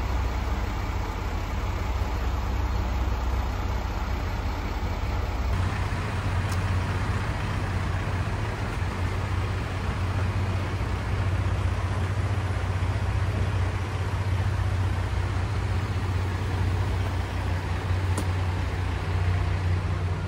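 KiRo 185 diesel railcar engines idling steadily with a low hum while the train stands at the platform.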